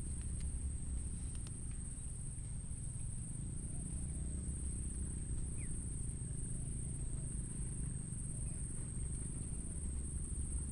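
Insects trilling steadily at one high, even pitch over a steady low rumble, with a few faint clicks early on.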